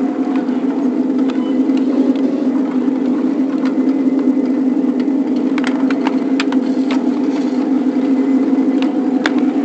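A 7.5-inch gauge riding-scale locomotive under way, heard from its front walkway: a loud, steady mechanical drone, with scattered sharp clicks from the running gear and track, bunched a little past the middle and once more near the end.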